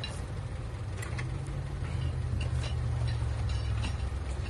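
A vehicle engine idling with a steady low rumble that grows a little louder about a second in, with a few light metallic clinks of tools over it.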